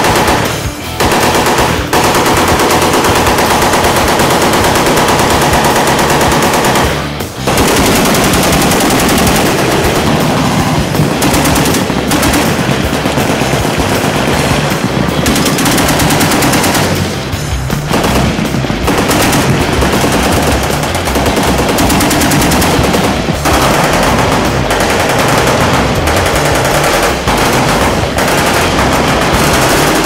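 Sustained automatic fire from several belt-fed machine guns, long bursts overlapping almost without pause, with brief lulls about seven and seventeen seconds in.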